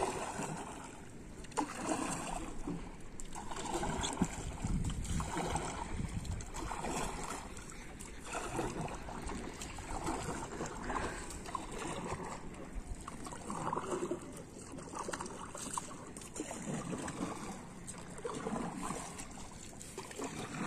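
Wooden rowboat being paddled: the paddle dips and sweeps through the water in a steady rhythm of about one stroke every second or so, each stroke a watery swish, over the low wash of water around the hull.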